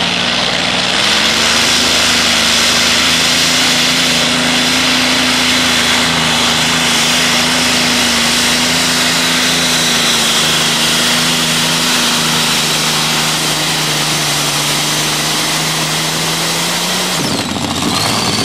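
Modified pulling tractor's engine running at full throttle under load as it drags a weight-transfer sled down the track. The pitch climbs in the first second, then holds a loud steady note that dips slightly about ten seconds in, and it breaks off near the end.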